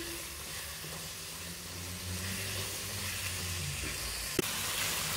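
Spiced beef and grated coconut frying with a steady sizzle in a nonstick pan, stirred with a wooden spatula, as the last of the liquid cooks off. One sharp knock about four seconds in.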